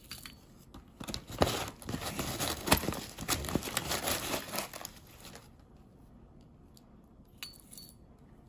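Paper bag crinkling and rustling with many small crackles for about four seconds as crushed candied sweet-potato sticks are scooped out of it. Near the end, a metal measuring spoon gives a light clink against the ceramic ramekin.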